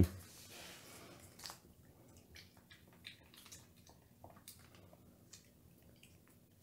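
A domestic cat chewing a treat: faint, irregular small crunches and clicks of biting and mastication.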